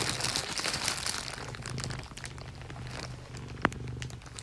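Plastic bag crinkling and crackling around a piece of bread as a cat bites and tugs at it, loudest in the first two seconds, with one sharp click a little over three and a half seconds in.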